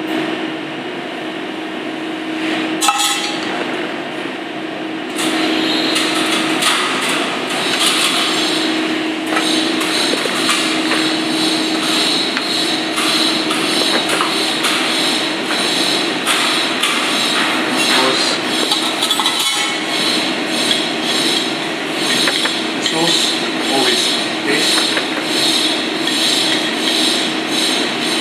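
Kitchen utensils clinking and scraping against a steel bowl and plate over a steady ventilation hum; the clatter gets louder and busier about five seconds in.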